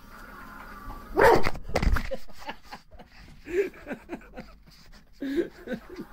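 A dog barking and yelping in short bursts at close range, loudest about a second in, with knocks and rustling as the phone is jostled.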